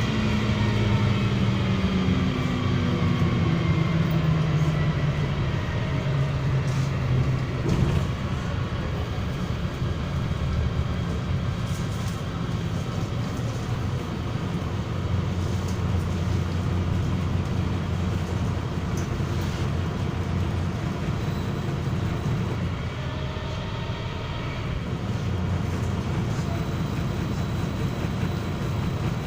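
MAZ-103 city bus heard from inside the cabin while under way: diesel engine and drivetrain running over steady road noise. The engine note falls in the first few seconds as the bus slows, then rises again about three-quarters of the way through as it picks up speed.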